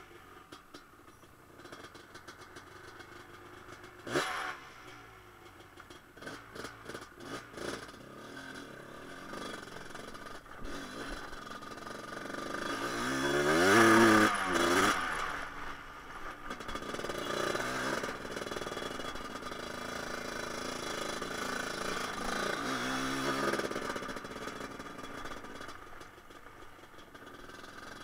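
1988 Honda TRX250R's two-stroke single-cylinder engine being ridden, revs rising and falling several times, loudest a little before halfway. A sharp knock about four seconds in, followed by a few rattling clicks.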